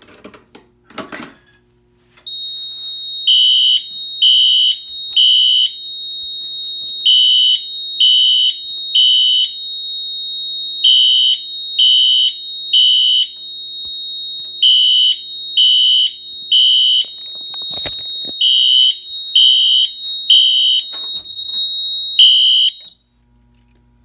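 A click about a second in as the FCI MS2 pull station is pulled, then fire alarm horn strobes sound the temporal-3 evacuation pattern: three beeps a second apart, a pause, repeated five times, with a sixth round cut short when the alarm is silenced. A steady high tone from the fire alarm panel runs underneath the beeps.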